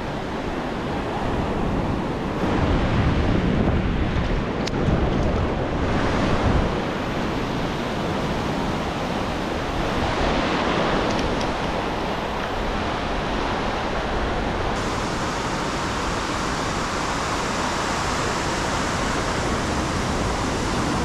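Ocean surf breaking and washing up the sand, with wind on the microphone, gustiest a few seconds in.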